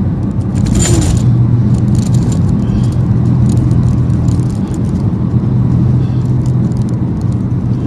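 Steady low drone of a moving car, heard from inside the cabin. A metal necklace chain being handled gives a brief jingle about a second in and a few faint clinks after it.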